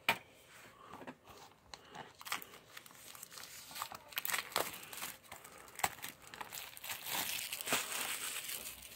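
Plastic shrink wrap being torn and peeled off a DVD case, crinkling and crackling with a few sharp clicks. The crinkling grows busier and louder in the last few seconds.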